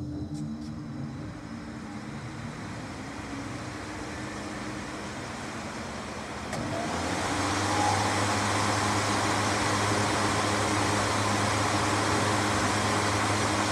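Large axial fan of a Cramo Polar WHT 250 industrial heater running at low speed with a steady motor hum. About six and a half seconds in, the speed selector is turned up and the fan steps up to a louder, steady rush of air.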